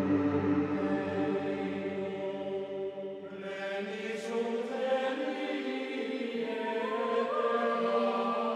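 Background choral music: voices chanting in long held notes that change slowly, the sound growing fuller about three seconds in.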